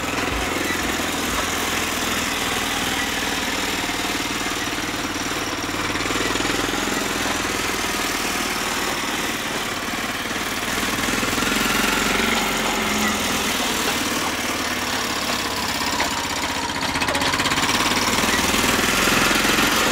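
Engine of a small home-built sports car running as the car drives along the road, a steady mechanical noise that grows a little louder in the second half.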